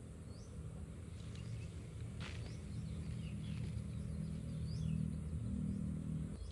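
Low, steady motor hum in the background, growing a little louder about four seconds in, with a few faint high bird chirps.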